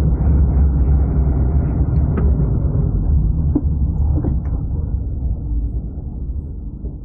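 Low engine and road rumble heard from inside a small Nissan hatchback as it drives, fading over the last couple of seconds as the car slows toward the traffic lights.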